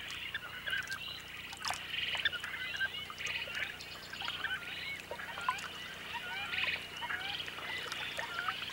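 Many small birds chirping and peeping: short calls and quick little trills, scattered through the whole stretch.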